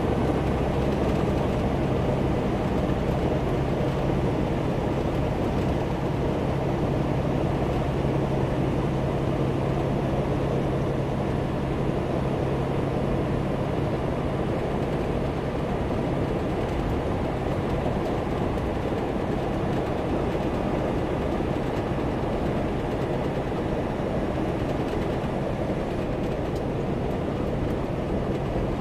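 Steady engine drone and tyre and road noise heard inside a truck's cab at highway speed. A low hum sits under it and weakens about halfway through.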